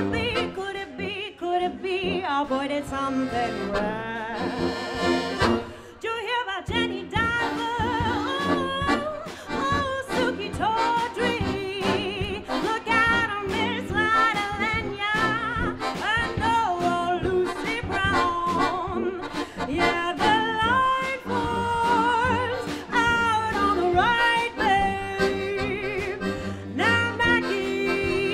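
Small live band playing a swing tune: a woman singing wordless, wavering lines over piano accordion and tuba.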